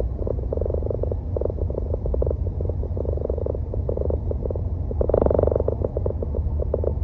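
Steady low road and engine hum of a moving car, with a rapid buzzing rattle that comes and goes in short clusters and is loudest about five seconds in.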